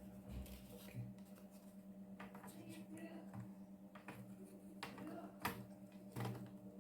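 Scattered light clicks and taps of a laptop's plastic bottom cover being handled and fitted back on, over a steady low hum.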